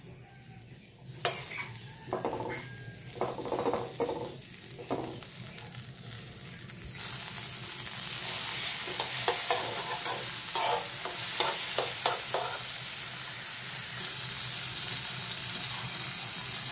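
Butter melting and sizzling in a frying pan while a metal spoon scrapes and spreads it around the pan. The sizzle jumps to a much louder steady hiss about seven seconds in, with the spoon strokes over it.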